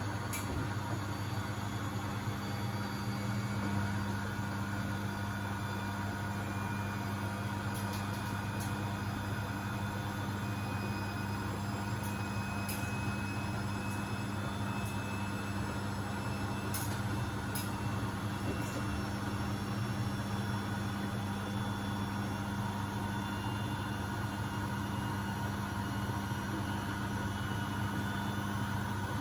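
Beko WMB71642W washing machine on its first intermediate spin, set to 1000 rpm: the drum spins at speed with a steady hum and a thin motor whine that drifts slightly in pitch.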